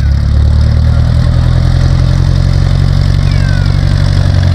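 An engine running steadily at low revs, a deep, even note that holds level.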